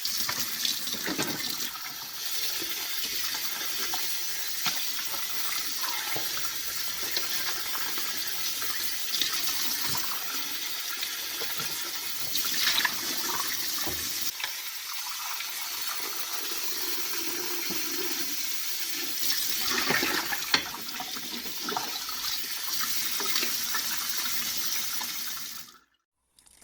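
Water running and splashing steadily, with gurgles here and there, cutting off suddenly near the end.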